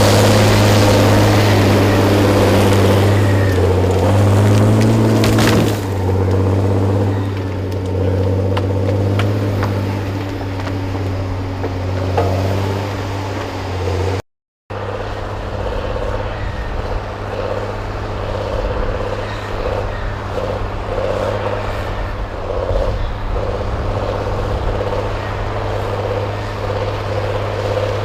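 Heavy forestry machine's diesel engine running steadily, with a few light knocks. The sound cuts out completely for a moment about halfway, then the engine carries on.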